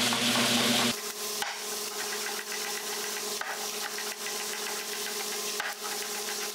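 Chef's knife mincing garlic on a wooden cutting board: soft taps and scrapes of the blade on the wood, with a few sharper knocks, over a steady hum.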